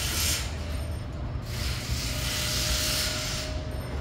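Sea water washing over shore rocks: a hissing wash that swells and eases, surging once more in the middle.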